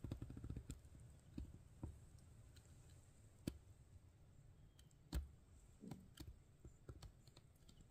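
Near silence with scattered faint clicks and taps. The loudest is a single sharp knock with a dull low thump about five seconds in, after a lighter knock a second and a half before it.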